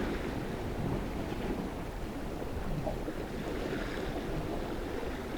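Steady wash of sea waves at a breakwater, with wind blowing on the microphone.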